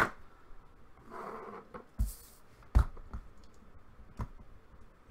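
A few separate sharp knocks and clicks, with a short soft rustle about a second in and the loudest knock near the three-second mark: handling noise as the camera is moved and things are shifted on a desk.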